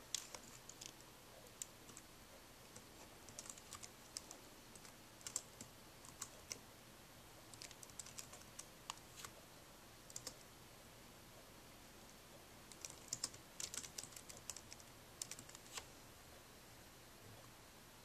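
Faint typing on a Dell Inspiron 1545 laptop keyboard: short runs of soft key clicks with pauses between them.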